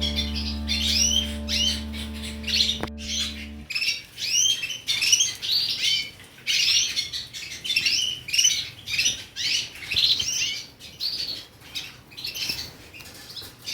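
Budgerigars and canaries chirping and calling in a dense, fast stream of short high notes. A backing music track cuts off about four seconds in.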